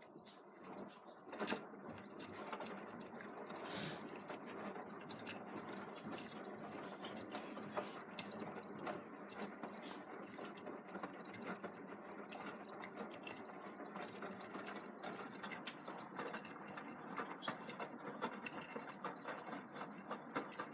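Beko WM74165W washing machine running on its Daily Quick Wash 90°C programme, its drum turning with a steady churning whirr and many small clicks. The sound builds in the first second, then holds steady.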